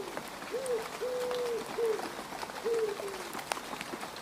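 Rain falling on mud, a steady hiss with scattered sharp drips. Over it, an animal gives a series of short low calls in the first three seconds, each rising quickly then sliding down.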